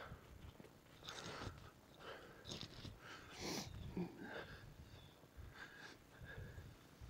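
Faint rustling of footsteps through grass and brush, with a person's breathing in short irregular puffs.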